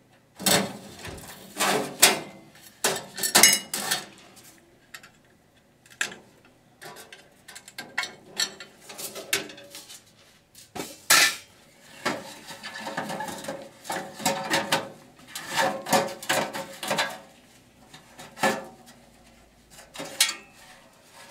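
Stainless steel parts of a commercial coffee maker clanking and rattling as they are handled, in a long run of separate knocks and clatters.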